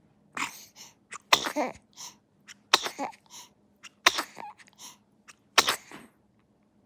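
A baby sneezing over and over, four loud sneezes about a second and a half apart, with smaller sneezy breaths between.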